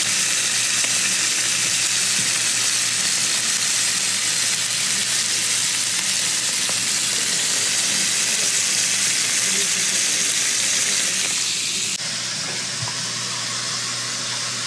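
Duck breasts frying fat side down in a hot pan: a steady sizzle that drops suddenly to a quieter sizzle near the end.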